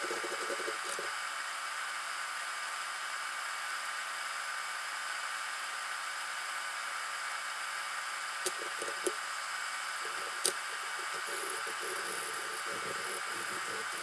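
Steady whir of running shop machinery, with three sharp clicks about eight to ten seconds in and light rubbing strokes over the last few seconds.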